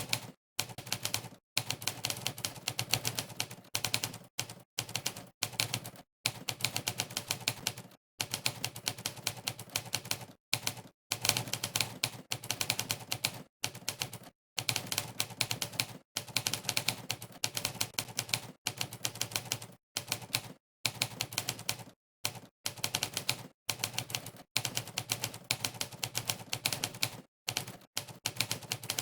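Monkeytype's typewriter key sound: sampled typewriter keystrikes, one per keypress, rattling off quickly as someone types. They come in runs broken every second or so by short gaps of complete silence.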